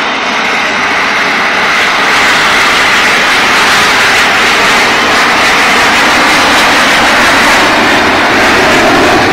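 Jet engines of a ten-ship formation of Frecce Tricolori Aermacchi MB-339 jet trainers flying past: loud, steady rushing jet noise that swells about two seconds in and holds.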